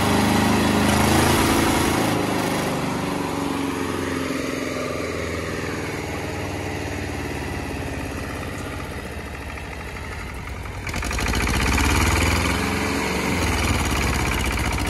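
Escort 325 tractor's diesel engine running as the tractor drives, its pitch falling over the first few seconds. About eleven seconds in the engine gets suddenly louder and revs hard under load as a tractor tug-of-war pull begins.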